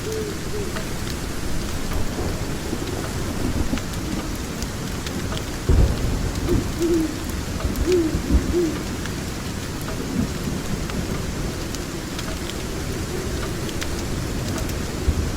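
Steady rain with thunder rumbling low, swelling loudest about six to nine seconds in, over faint crackles of a wood fire.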